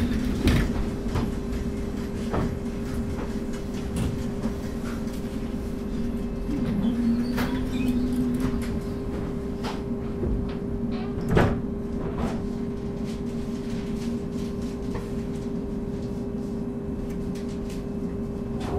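Interior of a Duewag/Kiepe B80D light-rail car running between stops: steady running noise with a constant hum from the car's equipment, wheels and fittings knocking and rattling, and one sharp knock about eleven seconds in.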